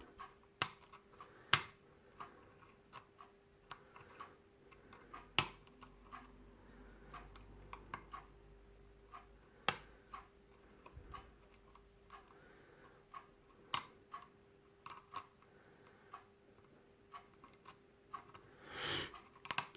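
Irregular light clicks and ticks of a lock pick and tension wrench working the pins of a Yale night-latch rim cylinder, with the last pin still unset and a few sharper clicks among them. A faint steady hum runs underneath.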